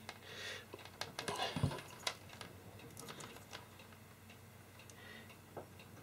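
Scattered light clicks and taps of plastic Anderson PowerPole connector housings and their wire leads being handled, most of them in the first few seconds, with one soft thump near the middle.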